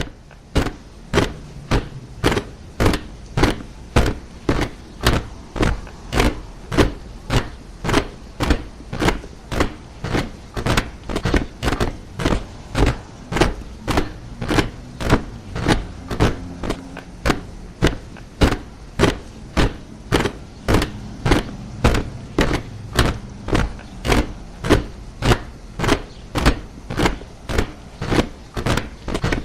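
A troop of soldiers marching in step, their boots striking the ground together in a steady cadence of about two steps a second, over a low background rumble.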